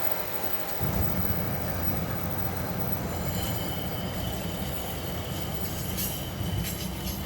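Train passing close by: a heavy rumble of rail cars sets in about a second in, and from about three seconds in a steady high-pitched wheel squeal rises above it, with a few sharp clicks near the end.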